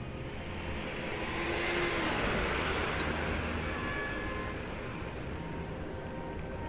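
A broad rushing noise that swells to its loudest about two seconds in and then slowly eases off, with faint tones of background music over it.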